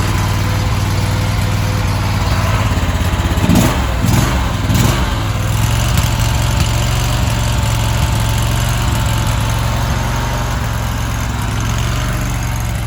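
23 hp RATO V-twin engine of a mini skid steer idling steadily just after a cold first start. About four seconds in, the engine speed wavers briefly while the choke is being sorted out, then it settles back to an even idle.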